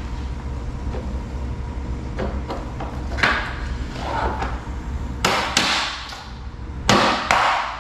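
Interlocking plastic RaceDeck garage floor tile being pressed down into place, its connector loops snapping onto the neighbouring tiles with a few sharp snaps and knocks, the loudest near the end.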